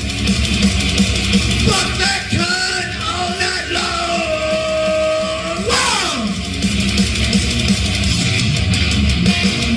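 Heavy metal song with distorted guitar and drums; a wordless yelled vocal note is held for a few seconds, then slides sharply down in pitch about six seconds in, leaving the band playing.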